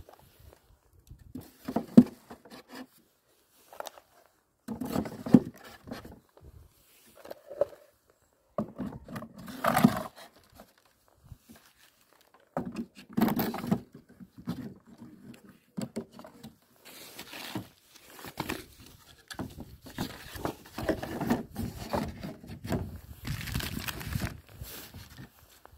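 Irregular knocks, scrapes and rustles of Mini Plus beehive parts being handled: comb frames, wooden cover boards and a foil-covered insulation board set and slid into place on the polystyrene hive boxes.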